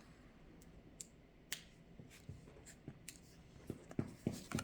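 Scattered light clicks and taps of trading cards and packs being handled, with a few soft knocks close together near the end.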